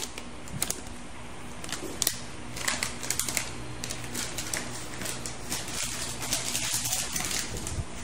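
Plastic packaging rustling and crinkling with many quick light clicks and taps, as a graphics card is unwrapped and handled. A low steady hum runs underneath.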